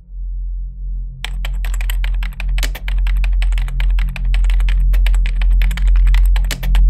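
Rapid computer keyboard typing, a fast run of key clicks that starts about a second in and stops just before the end, laid over a low, steady ambient drone.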